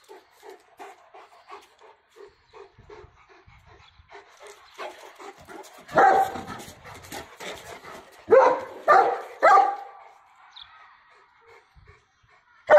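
A dog whimpering in a string of short, faint cries, about two or three a second, then barking loudly: one bark about six seconds in and three barks in quick succession between about eight and ten seconds.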